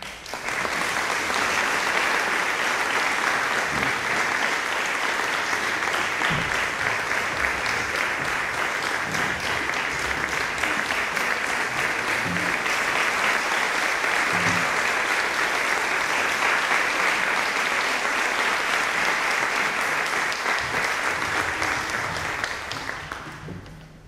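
Audience applauding with steady, dense clapping that dies away near the end.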